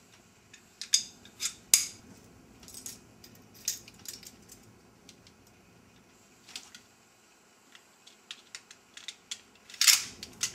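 Metal parts of a full-metal gas blowback Colt 1911 airsoft pistol clicking and clinking as they are fitted back together during reassembly. The clicks come irregularly, with a louder clatter near the end.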